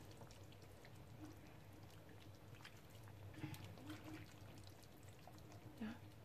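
Faint pouring of hot bún bò Huế broth from a steel ladle into a noodle bowl, a few soft splashes a little past halfway, over a low steady hum.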